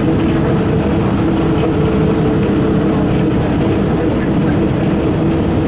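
Ikarus 260.50 diesel city bus driving at a steady pace, heard from inside the cabin: a constant engine drone and road rumble with a couple of steady held tones, its level unchanging.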